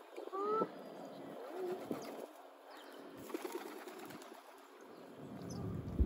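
Feral pigeons cooing, with short calls about half a second and a second and a half in, and a rush of low noise building near the end.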